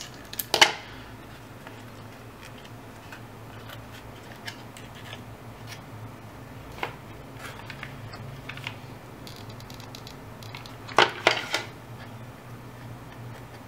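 Scissors snipping a thin paper strip: a couple of sharp cuts about half a second in, light ticks and rustles of paper being handled in between, and another short cluster of sharp snips near the end.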